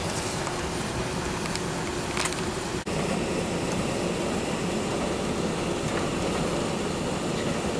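Steady cabin noise of an Airbus A380 taxiing after landing: engines at idle and the air conditioning running evenly, heard from inside the cabin. A brief break about three seconds in, after which the same steady noise carries on.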